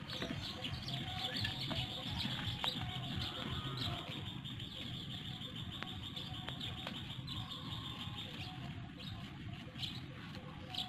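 Birds chirping continuously, with a few faint clicks.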